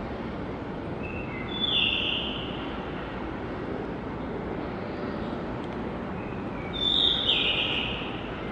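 Blue rock thrush singing: two song phrases about five seconds apart, each a few short lead-in notes followed by a louder, falling warbled phrase, over a steady low background rumble.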